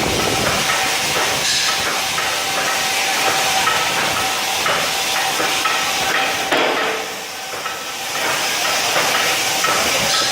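CNC plasma torch cutting steel plate: a steady, loud hiss of the arc and air jet with a thin steady whine over it, briefly dropping and then picking up again about six and a half seconds in.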